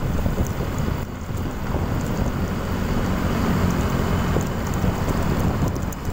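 Wind buffeting the microphone while riding along a road, over a steady low rumble of vehicle and road noise.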